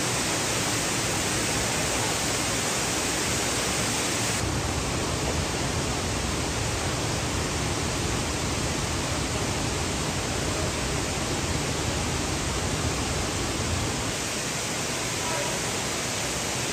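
Water from a burst water main pouring from the ceiling and cascading down the stairs onto a flooded subway platform: a steady rushing noise, a little deeper from about four seconds in.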